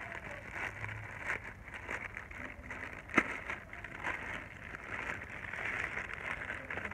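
Plastic courier mailer bag crinkling and rustling as hands pull it open and rummage inside, with a sharp click about three seconds in.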